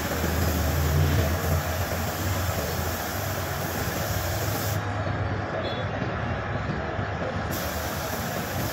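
Compressed-air hiss of a gravity-feed spray gun spraying paint, running steadily over a constant low hum.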